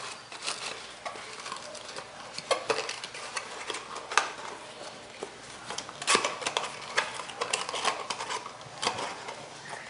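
Small cardboard box being handled and folded shut by hand, with scattered light taps, scrapes and rustles of the card flaps and the paper packing inside.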